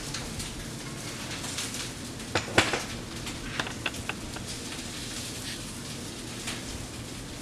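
Kitchen utensils clinking against cookware and plates, a few separate sharp clicks with the loudest about two and a half seconds in, over a low steady background.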